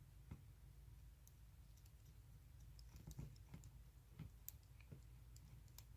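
Faint, scattered clicks and taps of small metal parts and washers being handled and fitted onto a coil tattoo machine frame, over a low steady hum.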